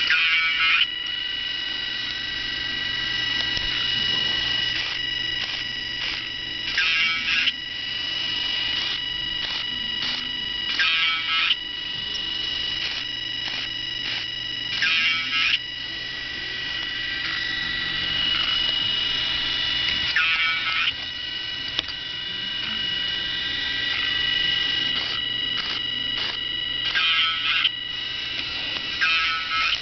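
Small hobby robot car running: a steady high electronic whine over the buzz of its little motors, with scattered clicks. About seven short buzzy bursts come every few seconds, the first right at the start and two close together near the end.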